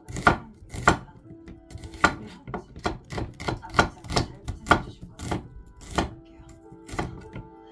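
Chef's knife slicing a white onion on a wooden cutting board: an uneven run of sharp chops against the board, quicker in the middle and spacing out toward the end.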